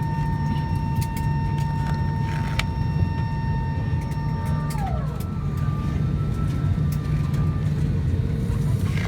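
Steady low rumble inside an Airbus A320 cabin, with a high steady whine that slides down in pitch and stops about five seconds in.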